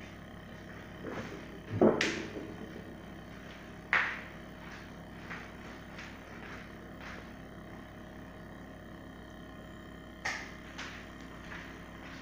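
Homemade flame-heated resonant engine driving a small generator, running with a steady low hum, broken by a few sharp knocks and taps, the loudest about two seconds in.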